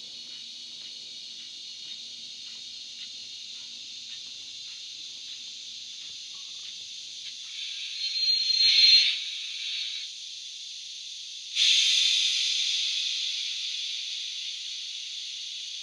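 Sound decoder and speaker in a model J70 steam tram locomotive playing Wheeltappers steam sounds: a steady hiss as it runs in and stops, a louder swell of steam with a short high tone about eight seconds in, then a sudden loud blast of steam at about eleven and a half seconds that slowly dies away.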